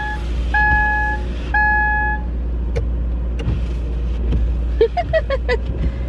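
Car interior: a two-tone dashboard chime beeps three times about a second apart over the steady hum of the idling engine, while the windshield wipers sweep heavy snow off the glass, with a few faint ticks and short squeaks later on.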